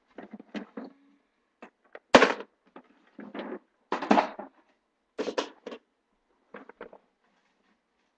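Rummaging and handling of objects: a run of clatters, knocks and rustles, the loudest about two seconds in, dying away after about seven seconds.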